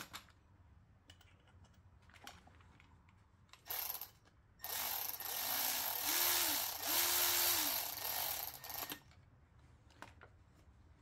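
Milwaukee cordless ratchet running in two or three short bursts over about four seconds, from a little before halfway, driving a bolt on a Brembo six-piston brake caliper, its motor whine stepping up in pitch. Before it come a few light clicks and knocks of the brake parts being handled.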